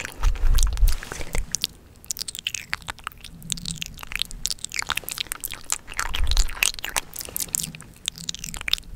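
Close-microphone ASMR mouth sounds: wet clicks and lip smacks, scattered irregularly, with two spells of low thuds on the microphone, one at the start and one about six seconds in.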